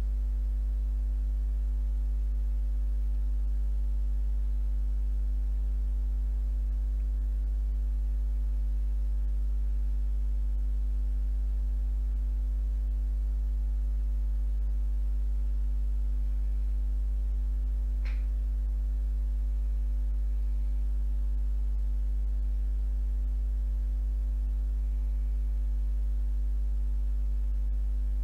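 Steady low electrical mains hum, with one faint short click about eighteen seconds in; no sizzle of frying oil is heard.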